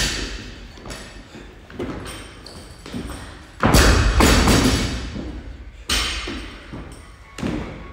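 Burpees in a weighted vest: dull thuds as the body and vest drop to the gym floor and land back on the feet, a few seconds apart. The loudest and longest of them comes a little under four seconds in.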